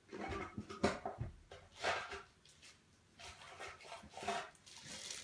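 Plastic deck sleeves for trading cards rustling and scraping as they are handled to sleeve a card, in a few short rustles about half a second in, around two seconds and around four seconds.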